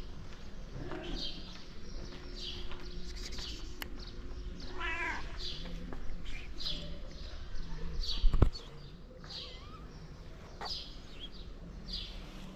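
Kitten mewing over and over in short high-pitched cries, roughly one a second, with one longer wavering meow about five seconds in. A loud low thump comes shortly after the middle.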